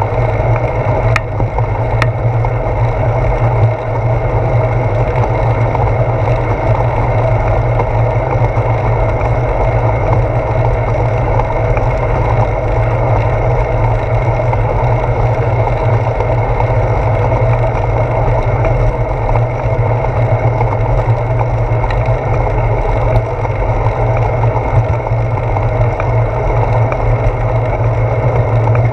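Steady wind rumble and road noise picked up by a handlebar-mounted GoPro Hero 4 on a moving bicycle, with a couple of light clicks about one and two seconds in.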